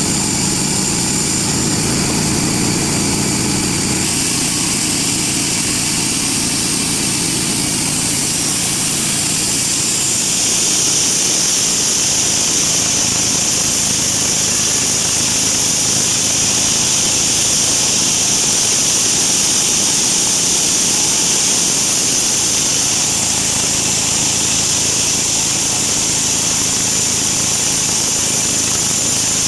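Sawmill bandsaw running and cutting a teak log: a steady mechanical noise with a high hiss that grows stronger about ten seconds in.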